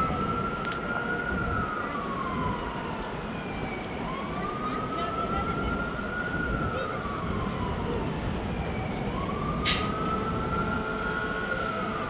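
An emergency-vehicle siren wails in the streets far below, rising quickly, holding, then sliding slowly down, and starting over about every five seconds. Under it runs the steady rumble of city traffic, with a single sharp click about three-quarters of the way through.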